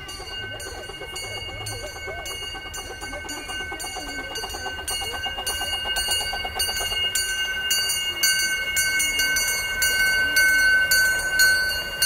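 A 15-inch-gauge live-steam locomotive and its passenger cars approaching and passing close by, growing steadily louder. It runs with a regular, quickening beat and a steady high-pitched tone above it.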